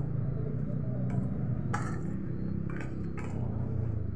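Raw chicken pieces with spices and oil being mixed in a stainless steel pot, the pot clinking and scraping a few short times, over a steady low hum.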